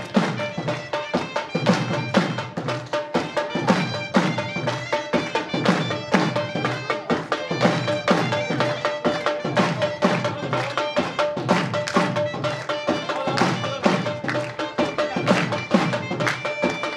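Traditional dhamaal music: a drum beats a fast, even rhythm, with a long held note over it for much of the middle of the passage.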